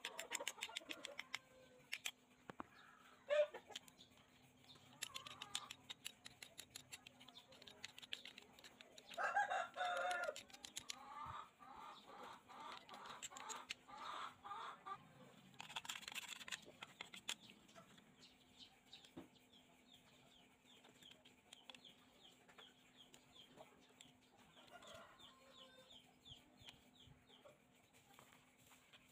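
Quick, sharp taps of a hand tool knocking caked dirt and rust off the parts of an old toy aircraft, loudest in the first few seconds. From about nine seconds in, a bird calls in a series of repeated pitched notes.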